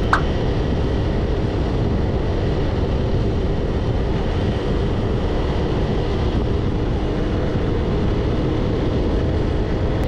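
Steady road and engine noise of a car driving along a highway, heard from inside the cabin: an even rumble of tyres on asphalt that does not change.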